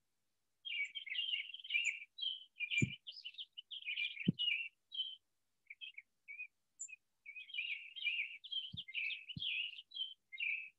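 Songbirds chirping and twittering almost without pause, a busy run of short high calls, with four brief low thumps scattered through.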